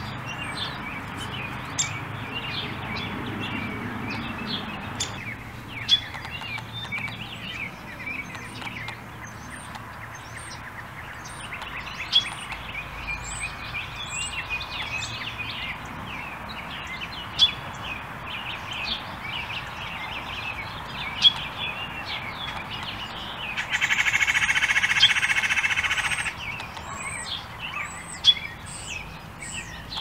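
Backyard songbirds chirping and trilling steadily, with a few short sharp snaps standing out. About 24 seconds in, a loud rasping buzz lasts about two and a half seconds.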